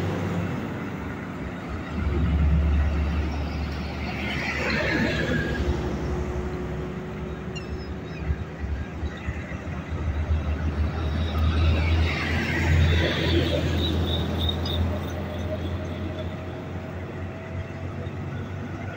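Motorway traffic passing: a steady low engine rumble, with two heavy vehicles going by about four seconds in and again about twelve seconds in, each swelling and fading away.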